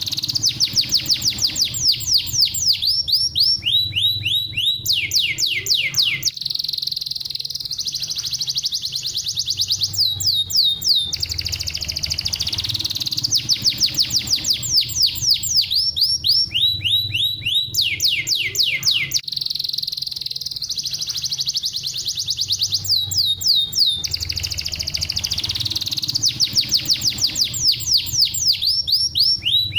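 Domestic canary singing: rapid trills of quickly repeated, downward-sweeping high notes, one trill phrase following another with hardly a break. The same run of phrases seems to recur about every ten seconds, over a faint low hum.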